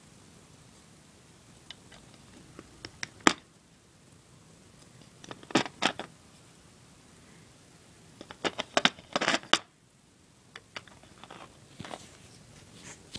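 Plastic Lego bricks clicking and knocking as they are handled and pressed onto a baseplate, in scattered bursts of clicks with the sharpest single click about three seconds in.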